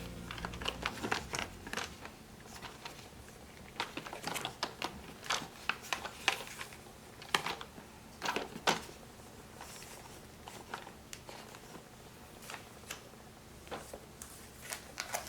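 Scattered clicks and knocks of plastic parts being handled and fitted together while assembling a corded stick vacuum cleaner.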